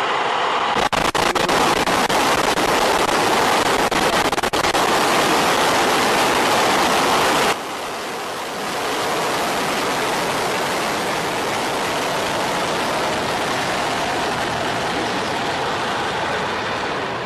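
Soyuz rocket engines at liftoff: a loud, steady rush of noise, crackling sharply for the first few seconds. The sound drops abruptly about seven and a half seconds in, then carries on as a steady rush.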